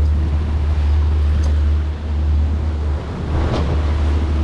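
Boat running at speed: a steady low motor drone with the wake churning and wind rumbling on the microphone, and a brief louder rush of water about three and a half seconds in.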